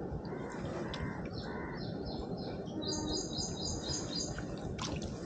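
Small birds chirping: two runs of rapid, short, high repeated notes over steady outdoor background noise, with a single sharp click near the end.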